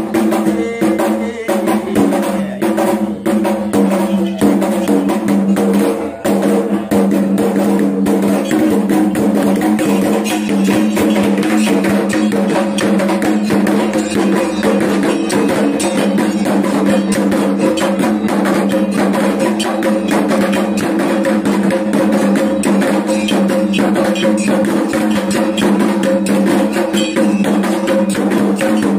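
Fast, continuous kendang drumming over a steady held tone, the ritual music of a Dayak belian healing ceremony. The beating is uneven for the first several seconds, then settles into an unbroken, even pulse.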